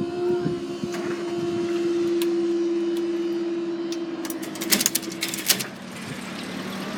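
Class 350 electric multiple unit passing, giving a steady whine from its traction equipment. A quick run of clicks and knocks comes near the end, and then the whine stops.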